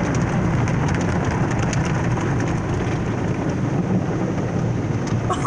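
Automatic car wash pouring soap and water over a car, heard from inside the cabin: a steady, rain-like rushing over a deep rumble, with faint patter throughout.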